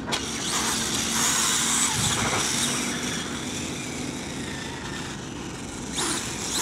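The 540-size brushless electric motor of a SkyRC Super Rider SR4 RC motorcycle whining as the bike is driven fast on asphalt, with tyre noise.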